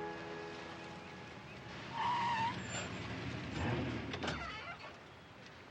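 A car pulling up, its tires squealing briefly about two seconds in, then the car noise fading.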